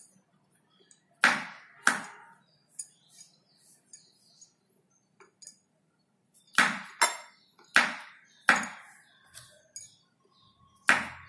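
Kitchen knife slicing through button mushrooms and knocking on a wooden chopping board: two sharp knocks, a pause of several seconds, then a quicker run of knocks and one more near the end.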